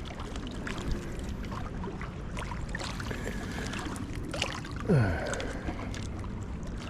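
The high, flooded river's water rushing steadily past the bank, with a few small clicks. About five seconds in, a short sound falls sharply in pitch.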